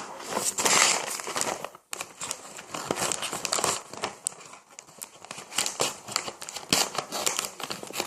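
Plastic snack bag of Honey Tong Tong potato chips crinkling and rustling as it is handled, with dense rattling clicks of chips being tipped out of it, pausing briefly about two seconds in.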